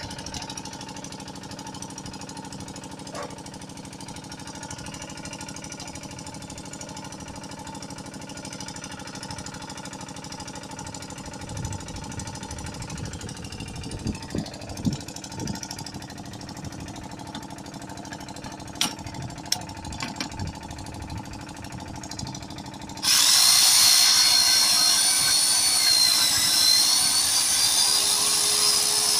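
Steady low hum with a few knocks of metal parts being handled, then, most of the way through, the electric facing tool of a manual HDPE butt fusion welding machine starts suddenly and runs loudly with a high whine as it trims the pipe ends.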